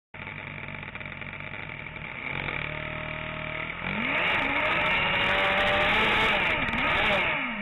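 Single-seater hillclimb car's engine held at raised revs on the start line, then revving hard at the launch about four seconds in. The revs swing up and down as the rear wheels spin on the wet surface and the car slides round, then drop away near the end.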